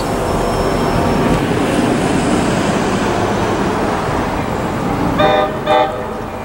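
Two short blasts of an NJ Transit F40PH-2CAT diesel locomotive's air horn, about half a second apart near the end, over a steady rushing noise as the train approaches.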